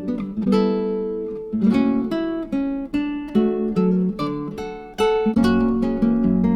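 Background music on acoustic guitar: a steady run of plucked notes and chords, each ringing out and fading.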